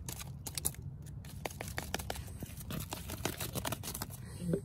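A stick tapping and batting against cauliflower and broccoli leaves, with quick irregular taps and the rustle of the shaken leaves. The plants are being beaten to shake caterpillars off.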